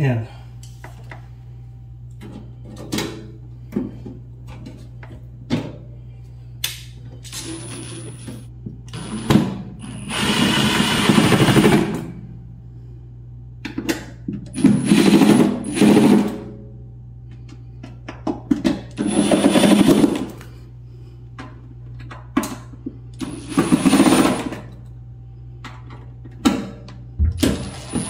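Cordless impact driver running screws into a refrigerator's plastic fan cover: several bursts of a second or two each, a few seconds apart, with small clicks and knocks of handling between them.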